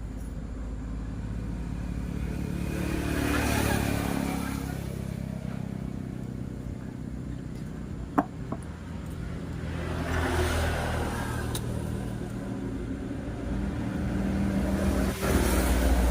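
Honda Vario scooter's single-cylinder four-stroke engine running, revved up three times, with a sharp click about eight seconds in.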